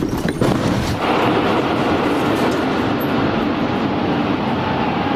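The drawn-out roar of a large bomb explosion, with a few sharp cracks in the first half second and then a steady, dense rumble.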